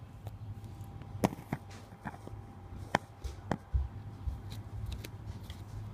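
Handling noise from a phone camera being set down and repositioned on a hardwood floor: a handful of sharp clicks and knocks over a steady low hum, then a few dull low thuds about halfway through.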